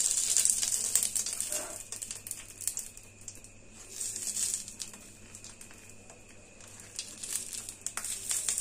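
Banana-leaf parcels crinkling and rustling as they are set one by one into a kadai with a little oil. The rustling comes in bursts: the loudest in the first second and a half, another about four seconds in, and more near the end.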